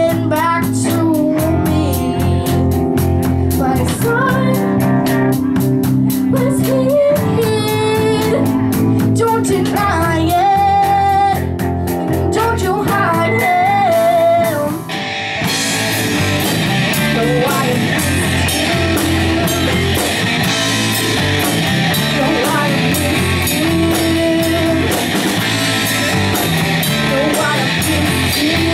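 Live rock band: a girl singing over electric guitars, bass guitar and drum kit. About halfway through, after a brief break, the band moves into a heavier section where the cymbals and guitars fill out the sound.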